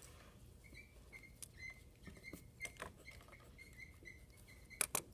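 Dry-erase marker squeaking against a whiteboard in short strokes as a word is written, with two sharp clicks near the end.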